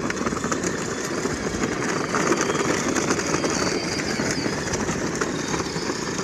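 Children's battery-powered ride-on car running: a steady, rough rumble of its small electric motors and hard wheels rolling over pavement, with a faint high motor whine in the second half.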